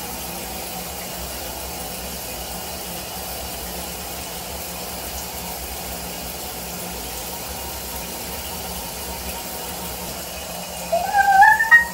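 Shower water running steadily. Near the end, high whining cries that rise and fall in pitch begin: a dog whimpering.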